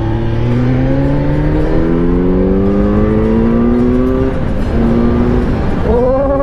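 Kawasaki Z900's inline-four engine accelerating, its pitch climbing steadily for about four seconds. Then comes a brief dip and a short steady stretch, and near the end a short rise-and-fall tone.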